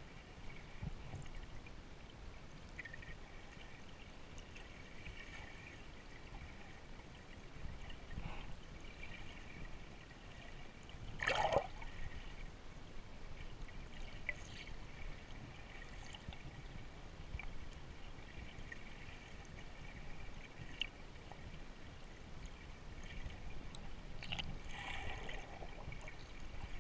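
Muffled water noise recorded underwater: faint steady sloshing and trickling of water moving around the camera, with a short, louder burst of water noise about eleven seconds in and a smaller one near the end.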